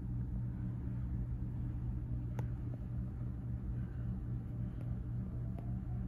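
Leslie Locke Play It Again Sam ceiling fan running: a steady low motor hum, with two faint ticks partway through.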